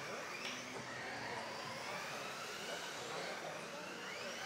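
Several electric RC off-road buggies racing, their motors whining together, each pitch gliding up and down as they accelerate and brake around the track.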